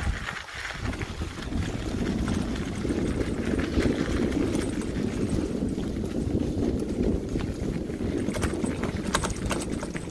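Riding noise from a bicycle: wind buffeting the microphone and tyres rumbling over a rough path. Sharp rattling clicks come in over the second half.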